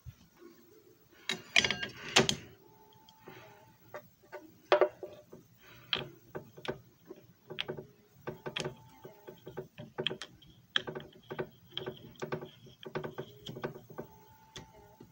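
Plastic handling clicks and knocks as a disc is fitted into a JFJ Easy Pro disc repair machine and its centre clamp knob is turned on the lid: a burst of louder knocks about one and a half to two seconds in, then a string of irregular sharp clicks with a few brief faint squeaks.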